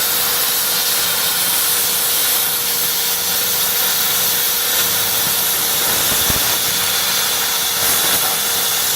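Homemade plasma cutter, built from a stick welder, with its torch hissing steadily as its arc runs on compressed air.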